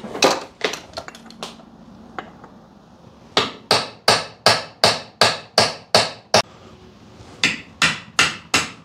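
Hammer blows on a chisel driving out the old front output shaft seal of a New Process 241C transfer case: a few lighter taps, then a steady run of sharp strikes about three a second, a short pause, and four more strikes.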